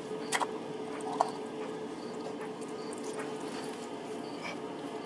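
Small metal clicks and handling noises as a bolt on the oil filter cover of a Yamaha Riva 180 scooter's engine is worked loose by hand, over a steady background hum. The sharpest click comes about a third of a second in and a smaller one just after a second.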